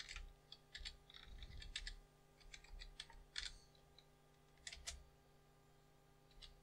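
Faint computer keyboard typing: irregular clusters of keystrokes for about five seconds, then a single keystroke near the end.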